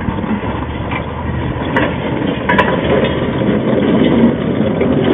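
Hand-pumped railroad handcar rolling along the track: its steel wheels rumble steadily on the rails, louder as it gets going, with a few sharp clicks.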